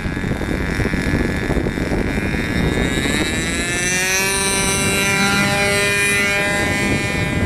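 Radio-control model airplane's engine and propeller running at high throttle. The pitch climbs about three to four seconds in as the plane speeds up for its takeoff run, then holds and sags slightly.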